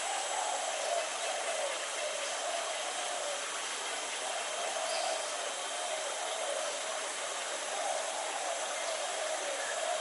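Steady background hiss with a low drone underneath that swells and fades in slow waves, about once a second. A faint short high note comes about halfway through. The perched, preening hornbills make no clear sound of their own.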